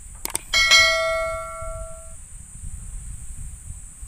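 Sound effect of a subscribe-button animation: a couple of quick mouse clicks, then a bright notification-bell ding that rings on and fades out over about a second and a half.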